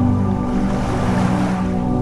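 Slow ambient music of sustained held notes over ocean waves washing onto a beach, a wave swelling in the middle.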